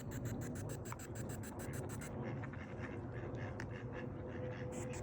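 Rapid, evenly pulsing static, about seven pulses a second, from a ghost-hunting communication device, over a low background rumble; a faint steady tone comes in near the end.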